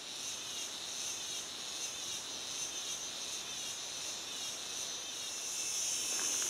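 A steady, high-pitched chorus of forest insects, growing a little louder near the end.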